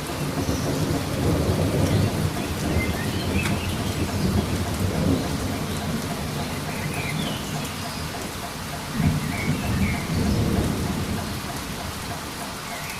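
Steady rain falling through a thunderstorm, with rolling thunder: one long low rumble through the first half, and a second rumble that starts with a sharper crack about nine seconds in.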